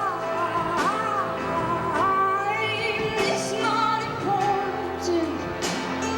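Live band playing a song, a singer's melody over sustained instruments with occasional cymbal crashes, recorded on a VHS-C camcorder.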